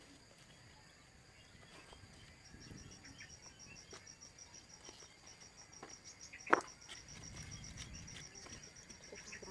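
An insect chirping in a fast, even run of high-pitched pulses. A single sharp knock comes about two-thirds of the way through.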